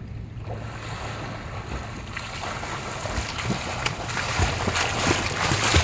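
Water splashing as two swimmers kick and stroke across a swimming pool toward the microphone. The splashing grows louder and busier over the last few seconds.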